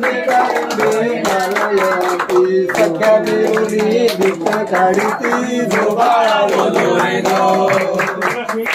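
Group of men singing a devotional song together in unison, with steady rhythmic hand clapping keeping time.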